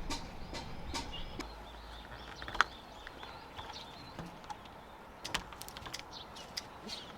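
Birds chirping faintly amid scattered light clicks and knocks, with one sharper knock a little over two seconds in and a quick run of clicks about five seconds in. A low hum fades out about halfway through.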